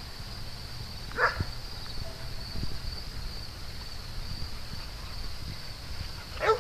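A dog barking once about a second in and again near the end, over a steady high-pitched buzz of insects.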